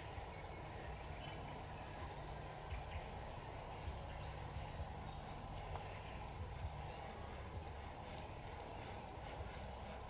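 Faint rural outdoor ambience: short, high chirps repeating about once a second, with some lower falling notes, over a low steady rumble.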